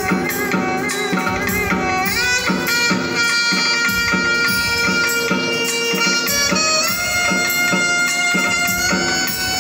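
Saxophone playing an Indian melody with long held notes and smooth pitch slides, over a steady rhythm on a hand drum.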